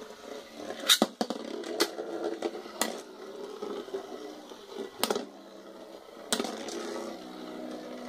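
Two metal Beyblade spinning tops whirring in a plastic stadium and clashing, with about five sharp metallic clacks, the loudest about a second in.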